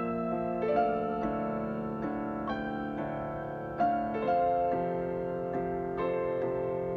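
Background piano music: slow, held notes and chords that change about every half second to a second.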